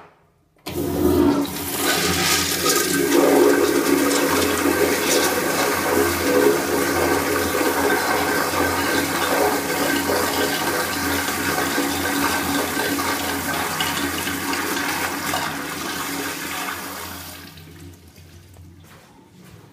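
A 1950s "Standard" Expello wall urinal flushing: a short click, then a sudden loud rush of water that runs steadily for about sixteen seconds before tapering off to a faint trickle near the end.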